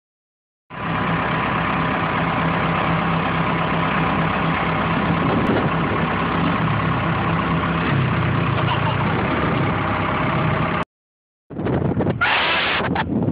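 A vehicle engine idling steadily, stopping abruptly about eleven seconds in. After a short gap, wind gusts buffet the microphone.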